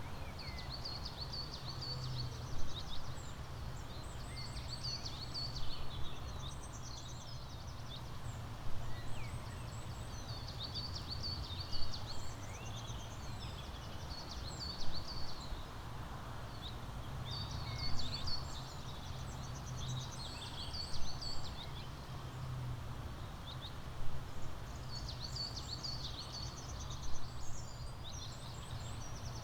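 Songbirds chirping and trilling, with one short song phrase repeating about every three seconds, over a steady low rumble.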